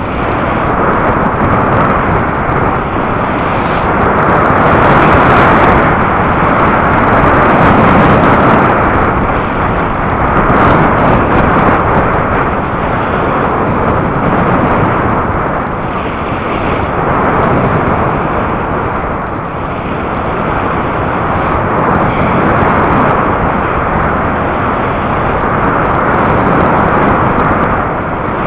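Wind rushing over the microphone while skiing downhill through powder: a loud, steady rush that swells and eases in slow waves.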